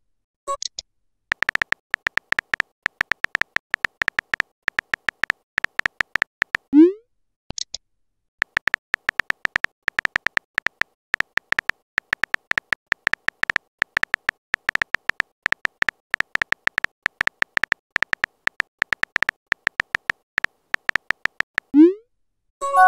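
Phone on-screen keyboard clicks, a rapid run of key taps as messages are typed, stopping briefly now and then. A short rising blip sounds as a message is sent, about seven seconds in and again near the end.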